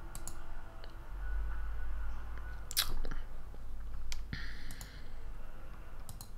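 A few sharp computer mouse and keyboard clicks, spaced about a second or more apart, over a low steady hum.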